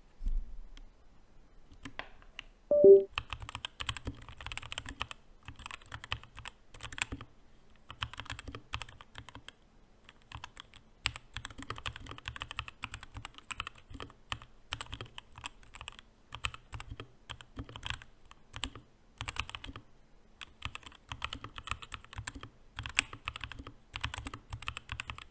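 Redragon Fizz K617 mechanical keyboard with lubed switches being typed on, fast clattering runs of keystrokes broken by short pauses. About three seconds in, just before the typing starts, there is one brief loud knock with a ringing pitch.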